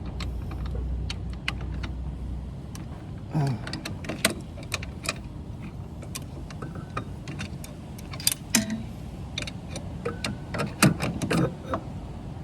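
Irregular metallic clicks and clinks of hand tools: a 17 mm socket and 3/8-inch-drive ratchet being handled and fitted.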